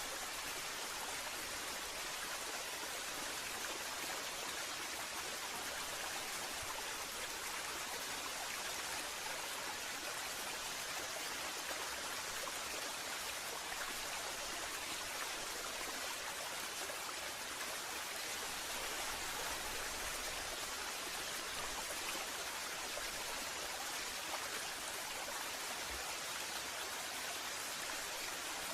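Waterfall rushing in a steady, even hiss of falling water.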